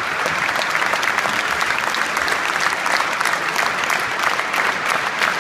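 Audience applauding steadily, a dense mass of many hands clapping, with one pair of hands clapping close by.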